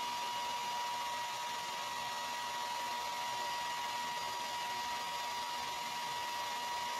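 Hair dryer running steadily on one setting: a constant rush of air with a steady high whine from its motor and fan.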